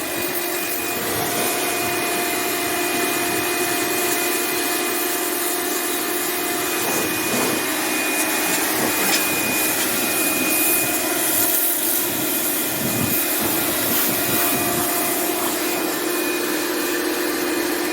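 Lakoni Laguna electric pressure washer (550 W, 100 bar) running steadily, its motor humming under the hiss of the high-pressure water jet. It shuts off suddenly at the end.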